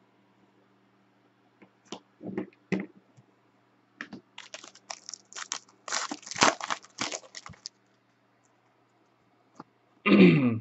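A foil trading-card pack being torn open and its wrapper crinkled: a run of crackling rips starting about four seconds in and lasting a few seconds.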